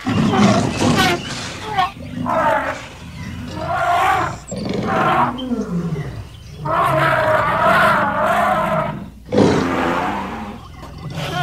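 Young elephant's distress calls while pinned down by a lion: a series of about five long, loud, wavering bellows with short gaps between them.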